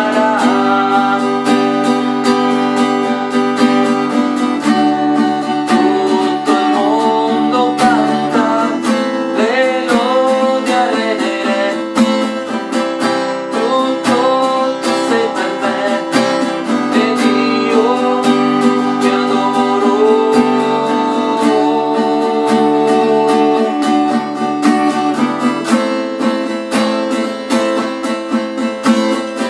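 Acoustic guitar strummed in a steady chord pattern, with a man singing over it in stretches.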